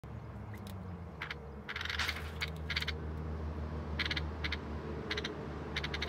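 A small bird's beak pecking at bread crumbs on a corrugated metal sheet: a string of sharp, irregular taps with a quick cluster about two seconds in, over a steady low background hum.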